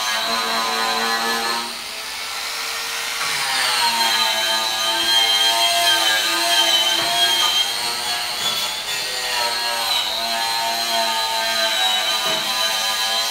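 A grinder running steadily with a whining motor tone. Its pitch sags and falls off just before two seconds in, then climbs back up about a second and a half later.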